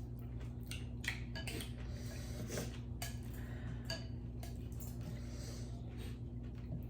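Utensils clinking and tapping against soup bowls during eating, a scatter of short light clicks over a steady low hum.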